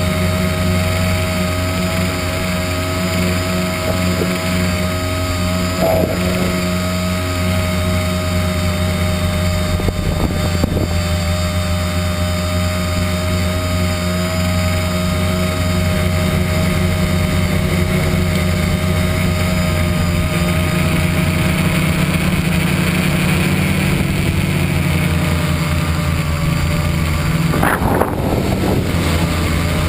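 Tricopter's three electric motors and propellers running steadily in flight, a steady multi-tone hum whose pitch shifts slightly. Near the end there is a brief rise in pitch as the throttle is pushed up.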